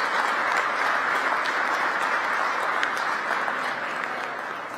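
Audience applauding, the clapping gradually dying away toward the end.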